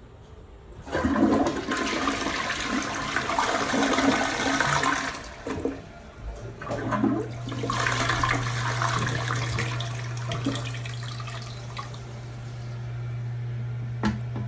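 Glacier Bay Power Flush toilet flushing: a loud rush of water starts about a second in and lasts about four seconds. A second surge follows a couple of seconds later, then quieter running water as the tank refills, over a steady low hum.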